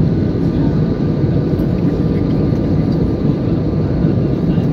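Steady cabin noise of a jet airliner on its descent to land, heard from a window seat: engine and airflow drone, strongest in the low range, with faint steady whines above it.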